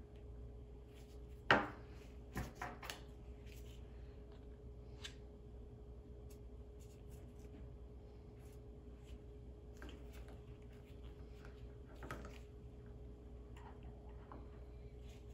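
Faint scraping and tapping of a spatula scooping ointment base out of a jar and onto a plastic weighing boat on a digital scale. There is one sharp tap about a second and a half in, a few smaller clicks just after, and another near the end.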